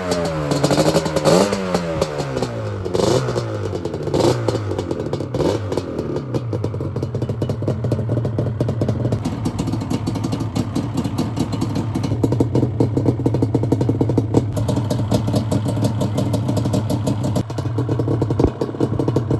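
Yamaha Banshee 350's two-stroke parallel-twin engine revved in a string of quick blips, then settling about six seconds in to a steady idle.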